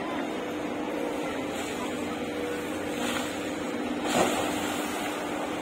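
SANY excavator's diesel engine running steadily, with a short splash about four seconds in as the bucket dumps wet river sludge.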